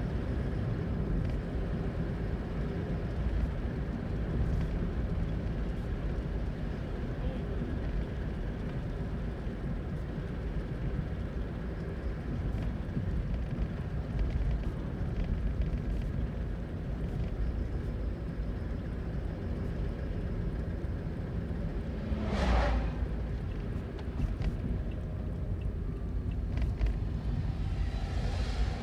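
Steady low rumble of a 2012 Toyota Aqua hybrid driving, heard from inside the cabin, with a brief whooshing swell about three quarters of the way through.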